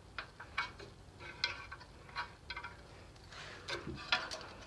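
Light metallic clicks and clinks of small hand tools, a feeler gauge being worked at a valve rocker, while a valve's clearance is being checked. The clicks are irregular, about a dozen over a few seconds.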